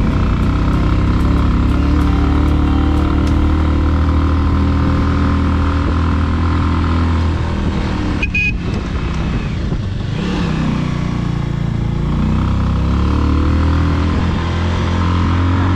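Bajaj Avenger 180's single-cylinder four-stroke engine running on the move. Its note sags and climbs again about ten seconds in as the bike eases off and picks up speed. A brief break in the sound comes about eight seconds in.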